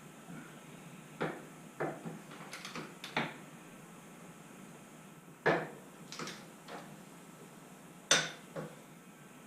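Scattered sharp metallic clicks and clanks of hand tools, a torque wrench among them, as motorcycle rear suspension linkage bolts are tightened. There are about nine separate knocks, some in quick pairs.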